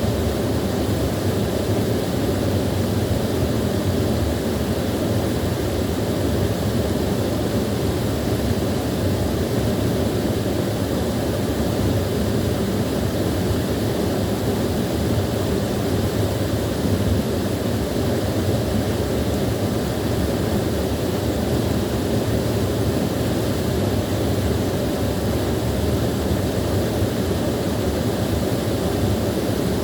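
Small waterfall pouring steadily: an even, unbroken rush of falling water, heaviest in the low end.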